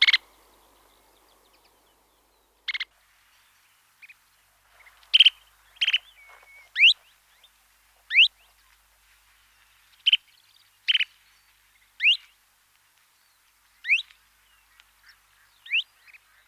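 Birds calling: short harsh calls alternating with quick rising notes, one every second or so with brief gaps between them.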